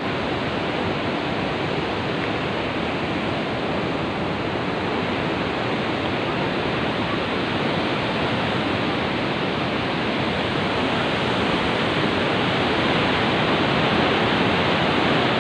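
Steady rushing roar of a large waterfall, Maria Cristina Falls, an even unbroken noise that grows slightly louder near the end.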